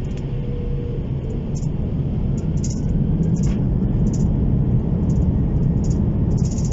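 Airbus A330-200 jet engine and cabin noise heard from a seat beside the engine: a steady low rumble that grows louder and heavier about three seconds in. Light rattling ticks come and go on top.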